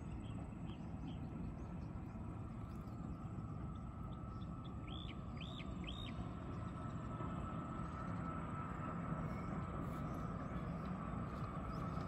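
Steady low outdoor rumble with a faint steady whine above it. A bird gives three short arched chirps about five seconds in, after fainter chirps near the start.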